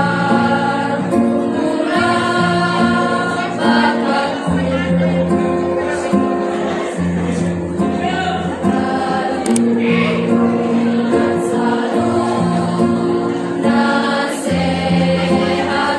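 Girls' choir singing together in long held notes that change pitch step by step.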